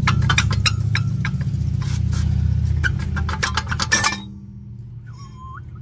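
Rear brake rotor of a 1997 Lincoln Town Car being wiggled off its hub by hand: rapid metallic clinks and scraping against the hub and parking-brake parts. It ends in a louder clank about four seconds in as the rotor comes free.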